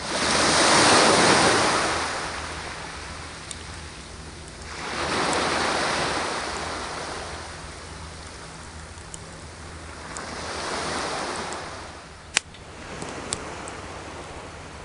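Sea waves breaking and washing up the shore, three swells about five seconds apart, the first the loudest. A few sharp crackles from a small wood campfire come between them.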